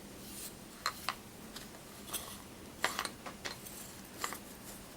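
Scattered light clicks and taps, about seven of them spread irregularly, as parts of a dismantled scroll AC compressor are handled.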